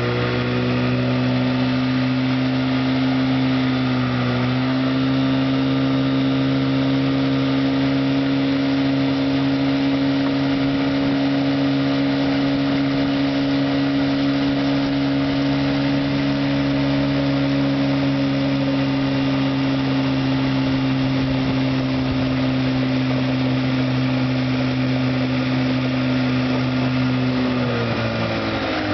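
1958 West Bend Muskie 8 hp two-stroke outboard motor running under way at a steady speed, smooth and even. Its pitch dips briefly about four seconds in and falls as it is throttled back near the end.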